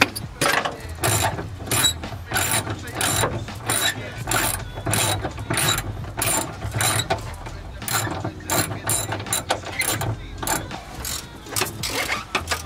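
Hand ratchet wrench clicking in quick repeated strokes, about two to three clicks a second, as it works a seat-belt anchor bolt.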